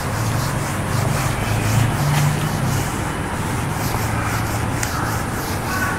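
A motor vehicle engine running, a steady low hum with a rushing noise over it.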